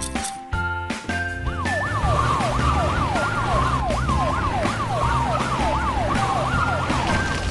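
Wailing siren, its pitch sweeping quickly up and down about twice a second, starting about a second and a half in and stopping near the end, over background music with a steady beat.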